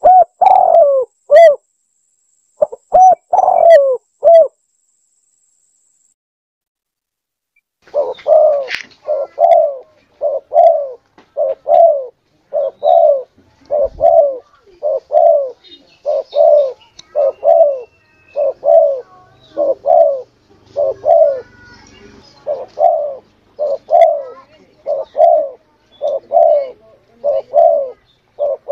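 Spotted dove (tekukur) cooing: a short burst of coos, a pause of a few seconds, then a long, even run of short coos at a little more than one a second, each dipping slightly in pitch. A recorded lure call used to draw wild spotted doves in.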